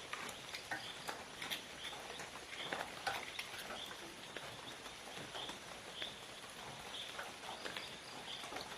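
Tropical forest ambience: a short high call repeated over and over, roughly every half second to a second, with scattered sharp clicks and crackles.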